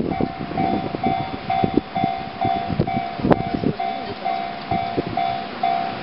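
Japanese level-crossing warning sounder ringing its repeating electronic 'kan-kan' tone, about two pulses a second, as the barriers stay down for an approaching train. Irregular low knocks run under it, with a sharp knock about three seconds in.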